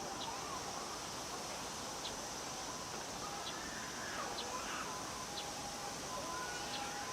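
Cicadas calling in a steady high drone, with short high chirps about once a second and faint wavering tones lower down.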